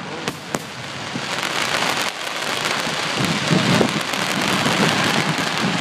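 Fireworks finale: two sharp bangs in the first second, then a dense, continuous crackle of many small crackling stars bursting at once, growing louder over the first few seconds.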